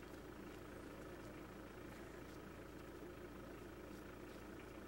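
Faint steady mechanical hum, with a few soft ticks scattered through it.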